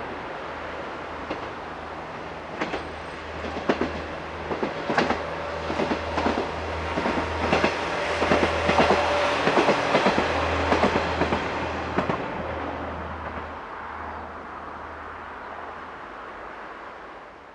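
A diesel train passing on jointed track: the wheels clack over the rail joints in quick groups while the sound swells to a peak and then fades away over the last few seconds, with a low engine drone underneath.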